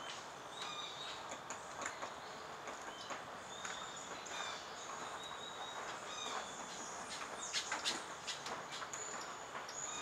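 Irregular light taps of a Lineated Woodpecker's bill on a Cecropia trunk as it feeds on ants, with a louder cluster of taps about seven and a half seconds in. Short high bird chirps and insects sound in the background.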